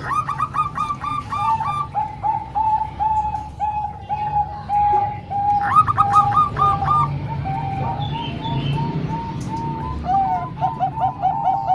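Zebra doves (perkutut) cooing: rapid strings of short, repeated coo notes, two birds overlapping at different pitches. The higher-pitched bird sings at the start and again about six seconds in.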